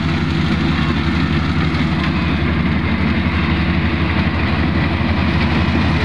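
Kubota DC-35 rice combine harvester running steadily under load, its diesel engine and threshing machinery going as it drives through the standing rice toward the microphone.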